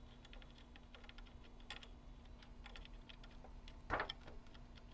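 Faint clicks and rustling of plastic wire-harness connectors being handled and plugged into a circuit board, with one louder click about four seconds in.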